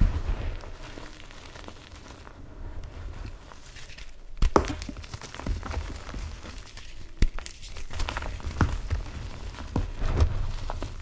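Reformed gym chalk blocks being broken and crumbled by hand in a tray of loose chalk powder: crunching and sifting, with a few sharp snaps as pieces break, the loudest about four and a half and seven seconds in.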